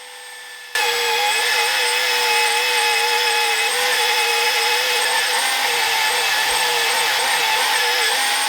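Belt sander grinding the edges of a steel saw-blade axe head. A steady hum for under a second, then a loud, continuous grinding with a wavering whine through the rest.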